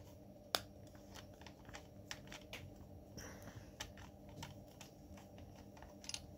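Small plastic clicks and ticks as a smart thermostat's plastic housing is handled and pried apart with a screwdriver, with one sharper click about half a second in.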